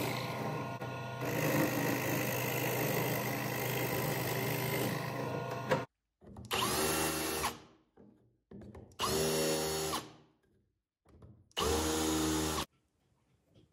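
Drill press boring through a wooden board with a spiral bit: steady motor hum under the noise of the bit cutting wood. It stops sharply about halfway through. A handheld power drill with a countersink bit then runs in three short bursts of about a second each, each spinning up with a rising whine as it countersinks a hole.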